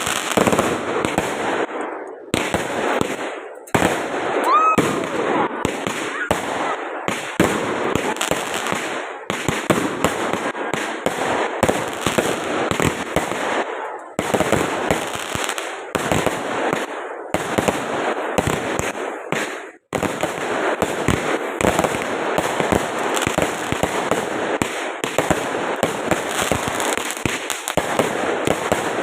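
A fireworks display: dense, continuous popping and crackling of shells bursting, with a short rising whistle about five seconds in.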